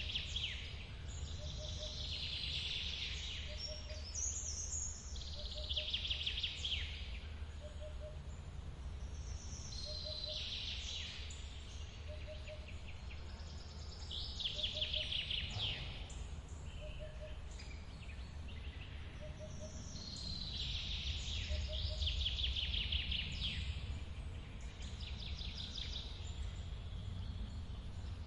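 A songbird singing repeated trilled phrases, about one every four seconds, over the steady low rush of a forest waterfall. A faint short note repeats beneath them about every second and a half.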